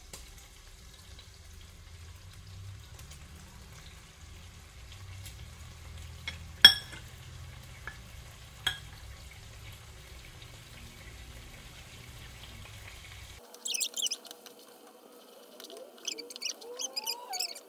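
Meat frying in a pot with a steady low sizzle. A sharp clack comes about six and a half seconds in and a lighter one two seconds later. Near the end a wooden spoon scrapes and stirs the pot in short bursts.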